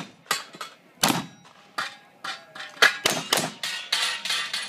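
Rapid, uneven string of black-powder gunshots from several shooters firing at once, about a dozen in all, with steel targets ringing between shots.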